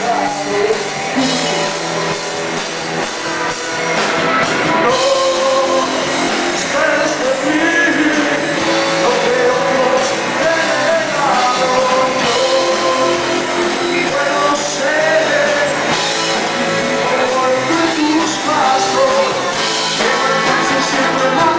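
Rock band playing live with amplified electric guitars and a lead singer, loud and dense; the sound swells about four seconds in.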